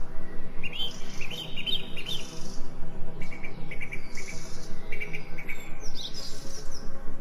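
Small songbirds chirping and trilling in short high phrases, several in a row, over a steady low humming background that pulses a few times a second.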